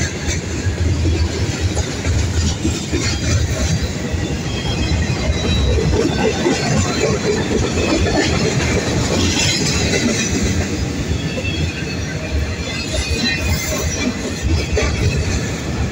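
Freight train of covered hoppers and boxcars rolling past close by: a steady rumble and clatter of steel wheels on the rails.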